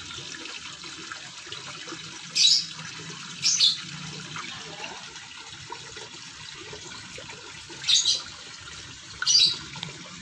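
Red-tail catfish splashing at the pond surface while feeding: four short, loud splashes, two about two and a half and three and a half seconds in and two more near the end, over a steady sound of running water.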